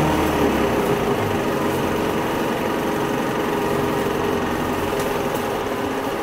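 Interior running sound of a Hino Rainbow non-step city bus: the diesel engine and drivetrain hum steadily over road and tyre noise, easing off a little after about four seconds.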